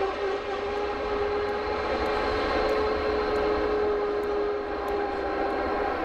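Airbus A321-231's wheel brakes squealing during the landing roll: a steady, high-pitched tone held over the rumble of the rolling jet.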